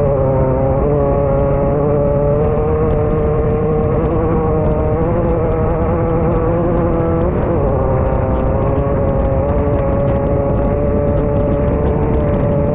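Class 9 off-road race buggy's engine running hard at a steady high engine speed, heard from inside the car. About seven seconds in, the pitch dips briefly and comes back.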